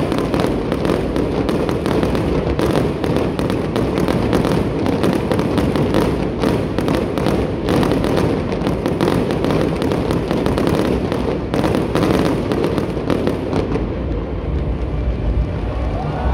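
Aerial fireworks bursting overhead in a dense, rapid crackle of many small pops and bangs. The crackling dies away a couple of seconds before the end, leaving a steady low rumble.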